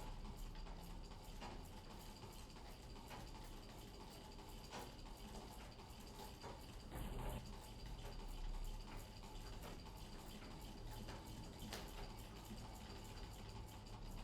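Treadle sewing machine (Singer 15) stitching slowly, with faint, irregular ticks from the needle and mechanism under a low steady hum.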